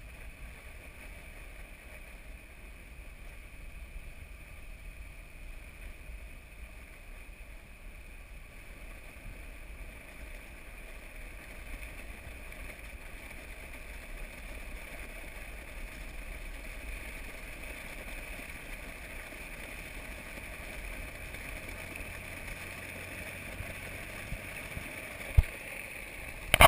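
Vehicle driving across a dry salt pan, heard from a camera mounted outside on the bonnet: a steady rumble of engine and tyres with wind noise. A sharp knock near the end as the camera is shifted on its mount.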